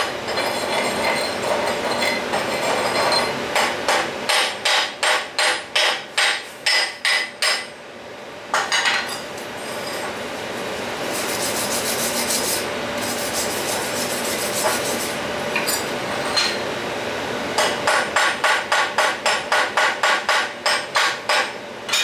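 Slag being chipped off fresh stick-weld beads on steel plate with a chipping hammer: a quick run of sharp metal strikes, about two to three a second. Around the middle a steel wire brush is scrubbed over the bead with a scratchy rasp, and near the end comes another quick run of strokes.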